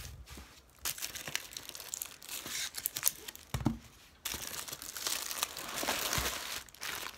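Packaging crinkling and rustling as diamond painting kits are pulled out of their shipping box and handled, irregular with short pauses.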